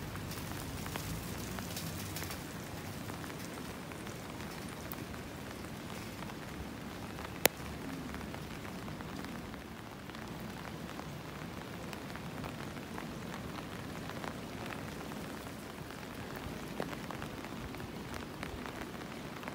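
Steady rain falling on wet pavement, with scattered drops ticking close by. One sharp click about a third of the way through stands out above the rain.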